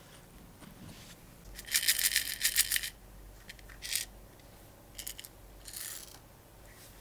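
Small chrome-plated model-car parts rattling and clinking in a clear plastic cup, loudest in a dense burst about a second and a half in, followed by a few shorter bursts of clinks as the parts are tipped out onto the table.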